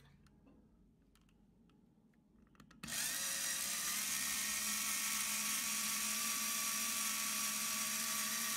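Small cordless electric screwdriver starting up about three seconds in and running steadily with an even whine, its bit pressed against the kettle's steel wall to scratch a location mark, after a few faint clicks.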